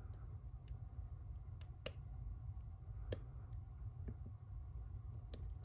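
Lock pick working the pins of a Zeiss Ikon SK6 high-security lock: about seven faint, scattered metallic clicks as the pins are probed and set, over a steady low hum.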